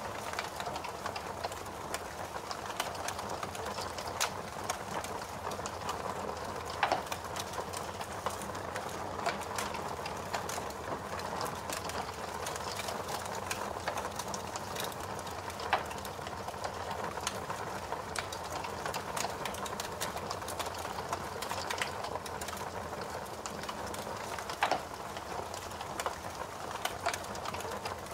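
Fire crackling: a steady soft rustle with frequent small pops, and a few louder snaps spread through.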